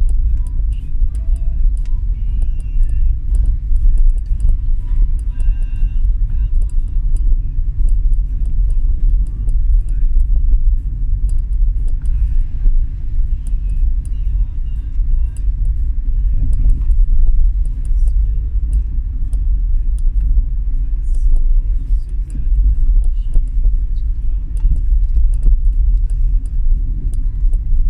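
Steady, loud low road rumble of a vehicle travelling along a street, with many small scattered ticks and rattles over it.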